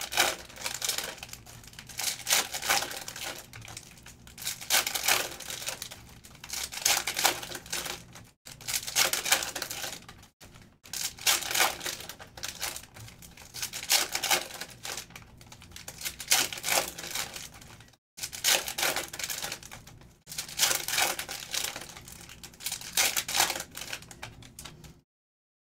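Trading card packs being torn open one after another: crinkly ripping of the pack wrappers in bursts about every two seconds, stopping shortly before the end.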